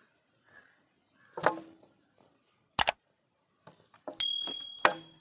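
Knocks and thumps on a large steel tray as a plucked chicken carcass is handled and set down on it: a sharp double knock near the middle, then a cluster of knocks near the end with the metal ringing briefly.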